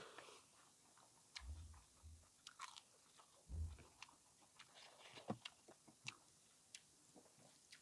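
Faint close-up chewing and eating sounds: wet mouth clicks and small crunches at an uneven pace, with a couple of soft low thuds.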